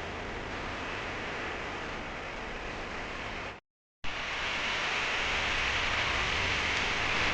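A steady rushing noise with no distinct events. It drops out completely for about half a second near the middle, then resumes a little louder and brighter.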